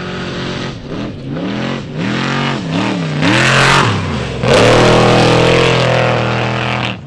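Off-road Trophy Truck engine revving up and down several times as the truck pulls away, then accelerating hard at high revs, loudest from about halfway.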